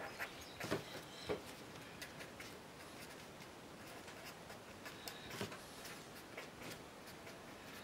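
Felt-tip marker writing on paper: faint short scratching strokes with brief pauses between letters, a few strokes a little louder than the rest.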